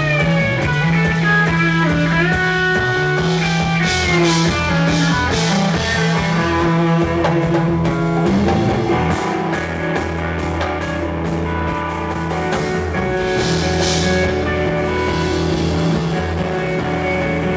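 A live rock band playing: electric guitar lines with bending notes over bass guitar and a drum kit. A run of rapid drum and cymbal hits comes in the middle.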